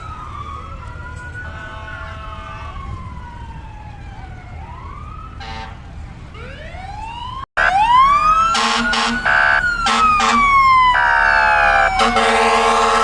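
Several emergency-vehicle sirens wailing at once, their pitches sweeping up and down and overlapping. About halfway through the sound gets louder, and short and long air-horn blasts join the sirens.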